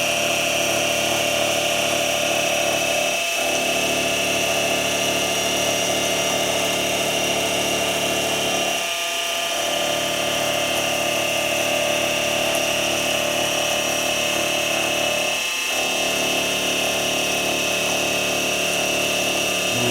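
Mini milling machine running steadily as it mills a pass, its motor and spindle giving a steady whine. The lower part of the sound briefly drops out three times: about three seconds in, around nine seconds and near fifteen seconds.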